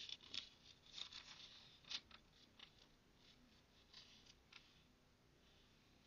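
Paper pages of a book rustling and crinkling as fingers turn and smooth them: a cluster of crisp rustles in the first two seconds, then softer, sparser ones.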